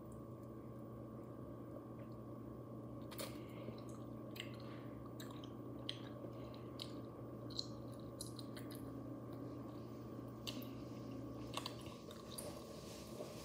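A person chewing and biting on something held at the mouth, close to the microphone: scattered small crunches and mouth clicks from about three seconds in until near the end, over a faint steady hum.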